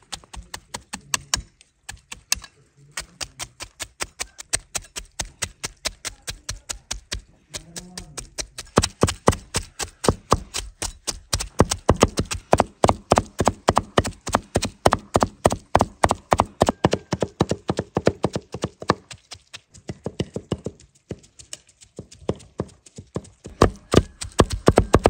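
Two heavy knives chopping minced chicken, red bell pepper and onion on a wooden board: rapid, rhythmic knocks of the blades on the wood, with a few short pauses. This is hand-mincing the meat together with the vegetables for kebab.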